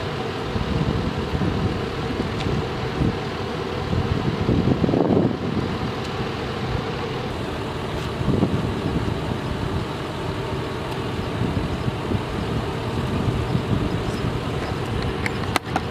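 Parked ambulance's engine idling steadily, with wind buffeting the microphone in gusts. A couple of sharp clicks come near the end.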